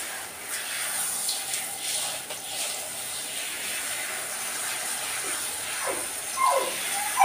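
Handheld shower head spraying water onto a wet Shetland Sheepdog's coat, a steady hiss. Near the end come a few brief falling whines.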